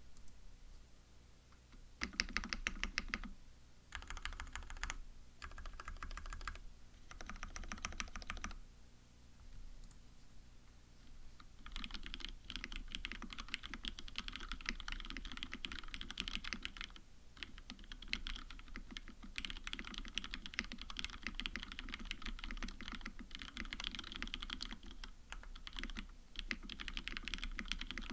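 Typing on a KBD75 mechanical keyboard with lubed, retooled Cherry MX Black linear switches, plateless tray mount and JTK keycaps. It starts with a few short bursts of keystrokes, then from about twelve seconds in runs into fast, continuous typing with only brief pauses.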